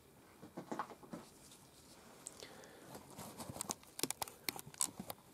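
Faint, scattered small clicks and wet crackles of gloved hands handling a raw animal skin, growing busier over the last two seconds.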